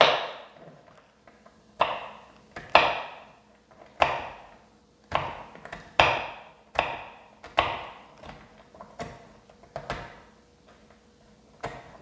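Kitchen knife chopping walnuts on a wooden cutting board: sharp knocks at an uneven pace of about one a second, each followed by a brief ringing of the blade, thinning out near the end.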